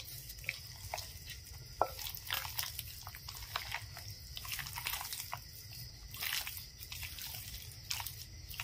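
A bare hand squishing and kneading chicken pieces in a thick, wet batter of curd, egg and flour, making irregular wet squelches and small smacks.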